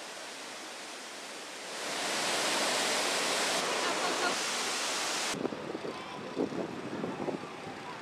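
Steady rushing roar of a large waterfall, louder from about two seconds in. It cuts off suddenly after about five seconds, giving way to a quieter rush of river water broken by irregular soft thumps.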